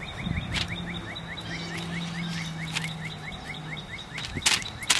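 A bird calling in a rapid, even series of short high chirps, about five a second, over a thin steady high note, for about three seconds. Near the end come a few sharp rustling clicks.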